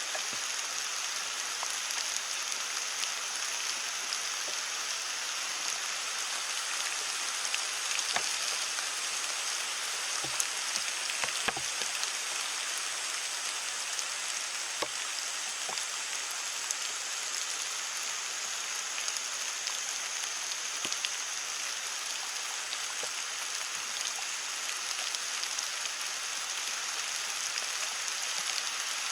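Heavy rain falling steadily on leaves, an even patter with scattered louder drop hits.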